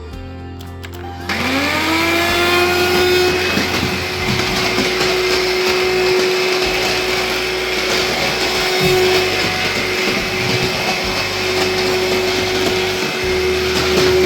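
Hoover HF1 Flexi Pet cordless stick vacuum's motor switched on about a second in, spinning up with a rising whine to a steady high-pitched run, then beginning to wind down at the very end as it is switched off.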